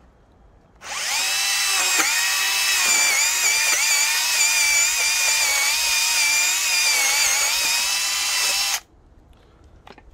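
Bosch EasyCut 12 cordless nanoBlade mini saw cutting through a wooden batten: a steady, high motor-and-chain whine that starts about a second in, wavers and dips in pitch now and then as the blade bites into the wood, and cuts off suddenly near the end.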